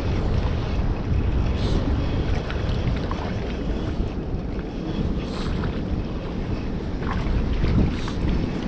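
Steady wind buffeting the microphone over the continuous rush of water pouring from a dam spillway, with a few faint clicks.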